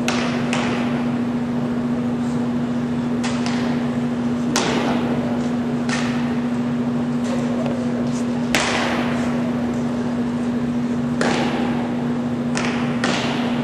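Sharp drill cracks from a cadet flag party with arms, boots stamping and rifle and flagstaff drill movements on a hard floor, about nine of them at uneven intervals, each echoing in a large hall. The loudest comes a little past halfway. A steady low hum runs underneath.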